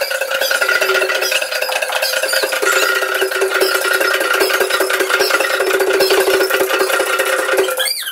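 Traditional Botswana dance troupe performing: dense, rapid rattling and stamping with drums, over steady held tones. It all stops abruptly near the end.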